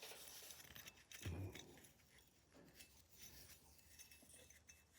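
Near silence with faint light clicks and rubbing from small metal shotgun parts being handled, and one soft low bump about a second in.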